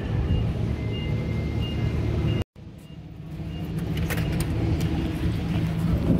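Steady low outdoor rumble, then after a brief cut, sharp metallic clicks as a lever door handle is worked and the door is pushed open.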